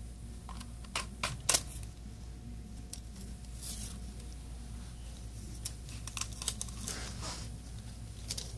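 Small clicks and crinkling from handling a smartphone during a screen repair: three sharp clicks close together about a second in, then lighter scattered clicks and a brief rustle near the end, over a steady low hum.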